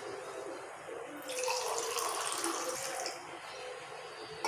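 Orange juice poured from a steel vessel into glass mugs: a splashing, trickling stream of liquid, louder from about one to three seconds in.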